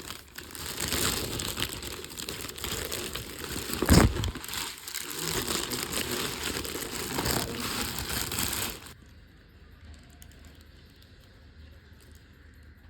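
Packaging paper or plastic crinkling and rustling as a parcel is unboxed, with one sharp louder knock about four seconds in. The rustling stops about nine seconds in, leaving faint room tone.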